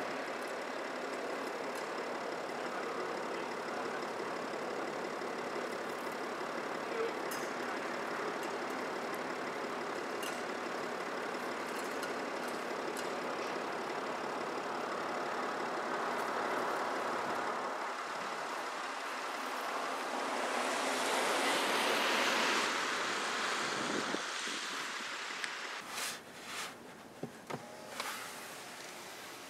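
Steady road traffic noise, swelling as a vehicle passes about 20 seconds in, with a few short clicks near the end.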